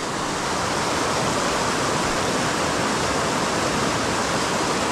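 Steady rush of a fast-flowing mountain stream.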